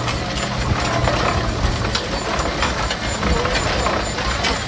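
Case steam traction engine driving along the road, a steady mechanical rattle with irregular sharp knocks from the machine and its steel wheels on the pavement.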